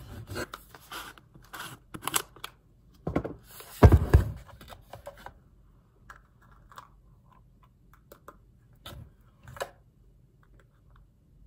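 Handling noises of packaging and containers: rustling and tearing with clicks and knocks, a heavier thump about four seconds in, then a few scattered clicks.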